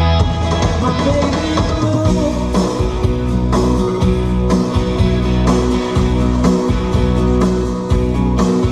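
Rock song with guitar and singing played through a Mercedes A45 AMG's Harman Kardon car audio system, streamed from a phone over Bluetooth, heard inside the cabin. The music cuts off suddenly just after the end.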